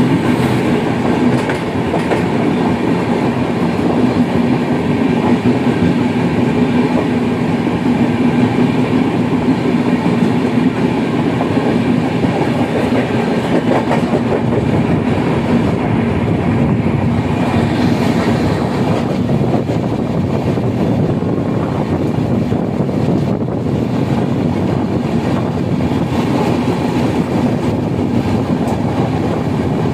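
Push-pull Rajdhani Express passing close at speed: a loud, steady rush of steel wheels on rail with clickety-clack over the joints and a low hum underneath.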